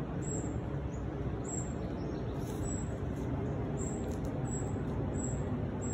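Distant road traffic as a steady low rumble, with a small bird's short, very high chirps repeating about once or twice a second.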